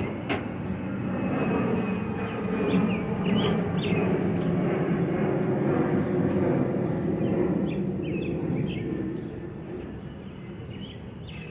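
A passing engine, a steady hum that swells over a few seconds and fades near the end, with birds chirping.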